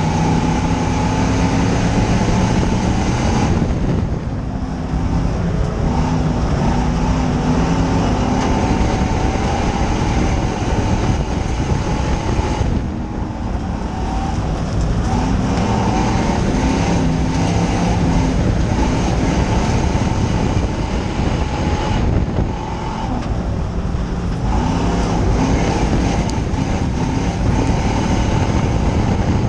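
Dirt-track stock car's engine running hard in a race, heard from inside the car. It falls away briefly three times, about every nine seconds, as the driver eases off for the turns, then pulls back up.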